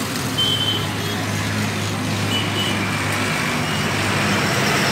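Tractor diesel engine running at a steady idle, a constant low hum that shifts slightly about three seconds in.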